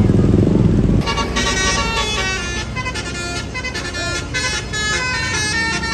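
A tour bus's engine rumbles heavily as it comes by. About a second in, its basuri multi-tone telolet horn starts playing a tune of short notes stepping up and down in pitch.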